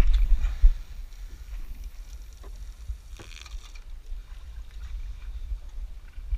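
Steady low rumble of wind and water aboard a small fishing boat, with a few light knocks and a short hiss about three seconds in.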